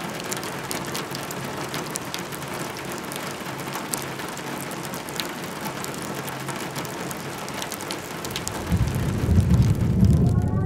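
Steady rain falling, with many small drop ticks; a low rumble of thunder swells in near the end.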